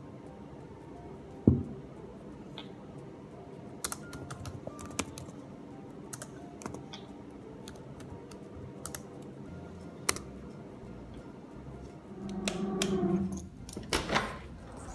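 Scattered light clicks of typing on a computer keyboard, with a sharp thump about a second and a half in and a louder low sound followed by a knock near the end.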